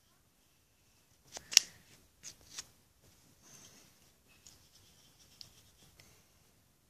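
Mascara tube and wand handled close to the microphone: a few sharp plastic clicks about one and a half and two and a half seconds in, the first the loudest, then faint rubbing and scraping.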